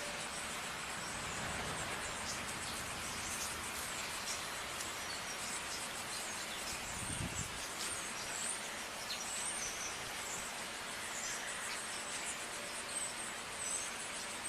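Outdoor ambience: a steady hiss with scattered short, high-pitched chirps throughout, and a brief low rustle about seven seconds in.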